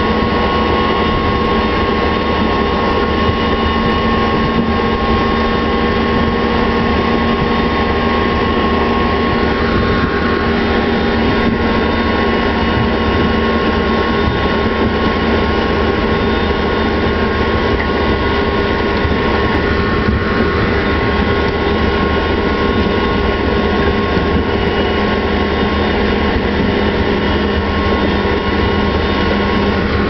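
Ropa Maus sugar beet cleaner loader running steadily under load while loading beets into a truck: a heavy diesel engine with a steady mechanical whine from its drives.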